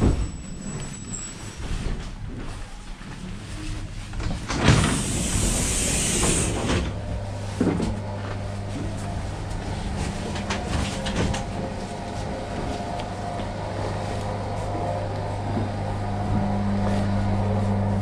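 Electric commuter train: a loud hiss of released air from its pneumatic system for about two seconds, then a steady low electrical hum that sets in and steps up in pitch near the end.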